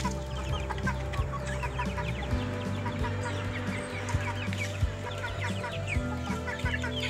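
Chickens clucking in many short calls, over background music with a low bass line that shifts pitch every few seconds and a regular beat.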